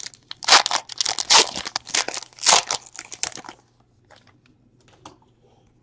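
Trading-card pack wrapper being torn open and crinkled in the hands, a dense crackling that stops about three and a half seconds in, leaving only a few faint clicks.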